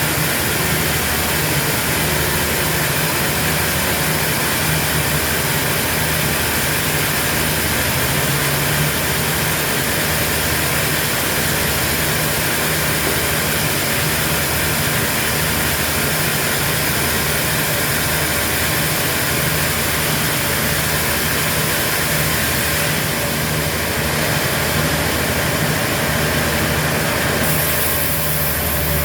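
Heavy sawmill machinery running steadily: a constant hiss with a low engine hum that pulses at a regular beat of about once a second.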